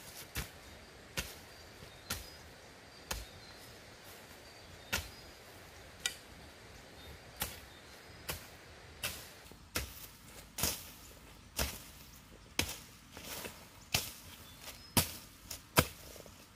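Short-handled hoe chopping into dry, stubbly soil in repeated strikes, about one a second at first, then faster and louder in the second half.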